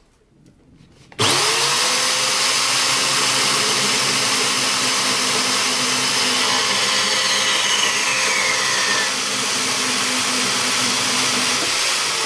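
Scheppach metal band saw switched on about a second in, its motor spinning up and then running steadily as the blade cuts a 15-degree test cut through square steel tube. A high tone slides down in pitch midway through the cut.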